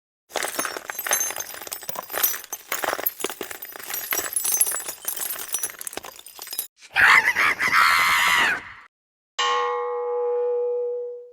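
A run of separate sound effects. First comes several seconds of clattering and clinking with many sharp clicks. Then a loud buzzy tone lasts nearly two seconds, and after a brief gap a single ringing, bell-like tone holds and fades out.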